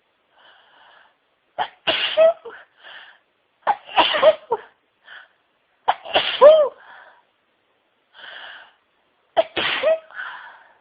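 A woman in a sneezing fit: four loud sneezes, each after a short breathy in-breath, the first three about two seconds apart and the last after a longer pause.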